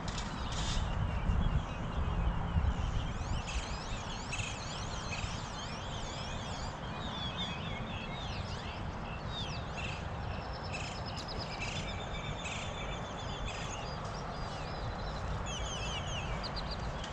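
Several birds singing and calling, in repeated chirps, sweeping whistles and trills, over a steady low rushing background noise.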